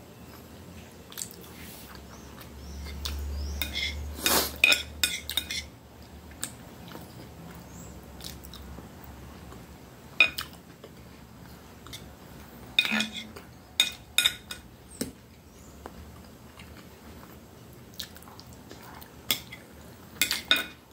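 Steel knife and fork clinking and scraping against a ceramic plate as food is cut, in short clusters of sharp clinks every few seconds. A low hum runs for a few seconds near the start.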